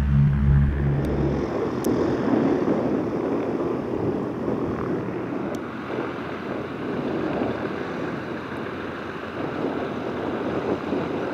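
Wind buffeting the microphone: a steady, fluctuating rushing noise. Low intro music fades out about a second and a half in.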